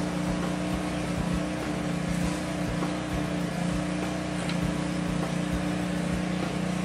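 Engine of a hose-fed power spray rig running steadily at constant speed, giving an even, unchanging hum.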